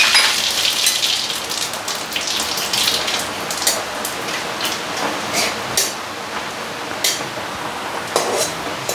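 Whole spices (radhuni seeds, a dried red chilli and a bay leaf) sizzling in hot ghee and oil in a metal kadai, the tempering (phoron) stage of cooking, with scattered crackles and pops. A spatula stirs through the spices.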